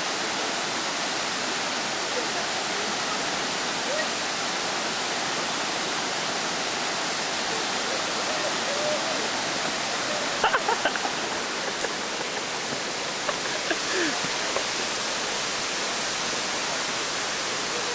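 Steady rush of a small waterfall spilling down a rock face and running over stones. Faint voices break through briefly about ten seconds in and again a few seconds later.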